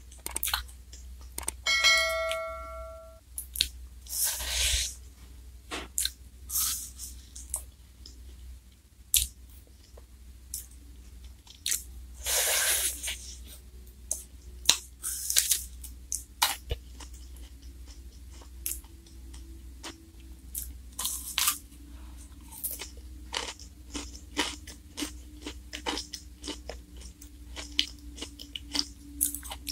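Close-up eating sounds: wet chewing, biting and crunching of a Glico Wings J-Cone ice cream in its black wafer cone, with many sharp mouth clicks and crunches. A short pitched chime sounds about two seconds in.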